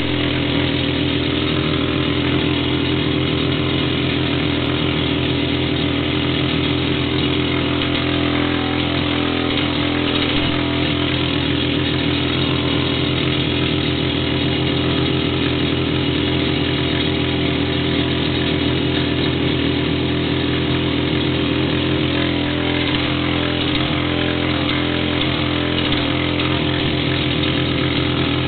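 Hand-held rock drill running steadily without a pause, drilling a hole for a rock dowel into rock.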